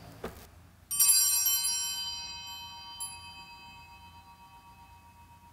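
Altar bell struck once about a second in, ringing and slowly fading over several seconds, after a faint click.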